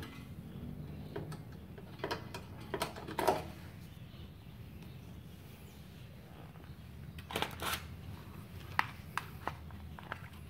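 ES1200 MOSFET inverter stick welder switched on, its cooling fan running with a steady, smooth low hum. Scattered light clicks and knocks come from the welding cables being handled, and they are the loudest sounds.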